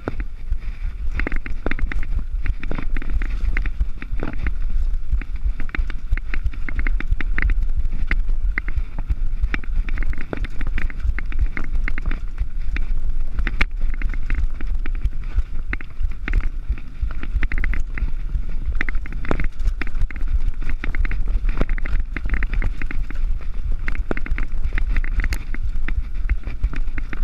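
Mountain bike running fast down a dirt and gravel trail: a steady rumble of wind on the microphone under constant rattling and clatter from the tyres on the rough surface and the bike's parts.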